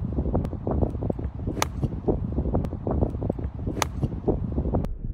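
Golf club striking the ball: two sharp impact clicks, about a second and a half in and again about two seconds later, over a low rumble.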